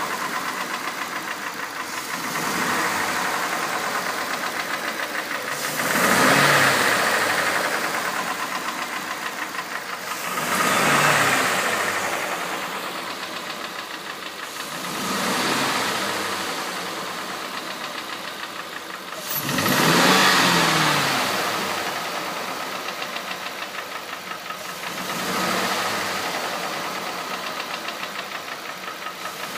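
Ford Coyote 5.0 V8 running with a newly installed Ford Racing timing chain set, being checked for timing noise. It idles steadily and is blipped up in revs about every five seconds, settling back to idle after each blip.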